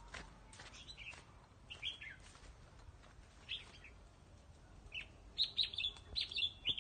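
Red-whiskered bulbul chirping: short bright calls, a few scattered at first, then a quick run of them in the last two seconds.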